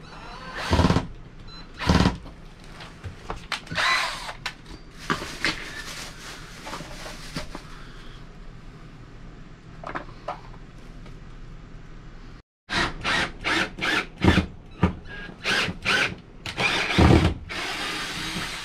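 Cordless drill with a small bit running in short bursts, drilling test pilot holes through a thin RV wall panel to find the plywood backer plate behind it. The bursts come a few at a time early on and in quick succession in the second half.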